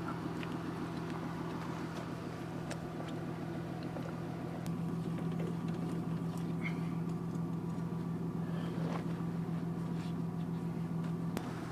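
A vehicle engine idling steadily, with a few faint clicks and knocks over it.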